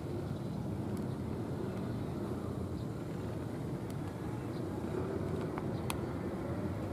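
Steady low engine rumble from a distance, with a few faint clicks near the end.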